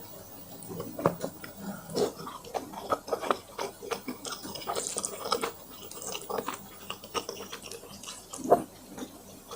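Close-miked eating of fire noodles: irregular wet slurping and chewing mouth sounds, with one louder slurp near the end.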